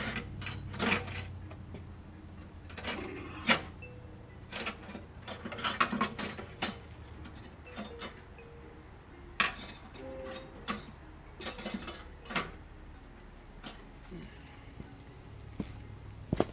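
Irregular metallic clicks, clinks and knocks of hand tools working on the Jeep Grand Cherokee's front axle and hub, a few of them sharper strikes with a brief ring.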